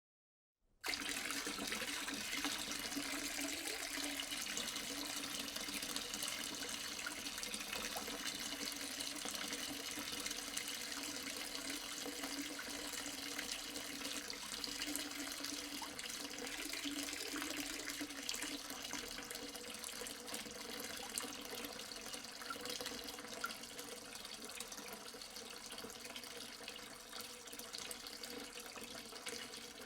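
Water running in a steady stream, starting suddenly just under a second in after silence and easing off slightly toward the end.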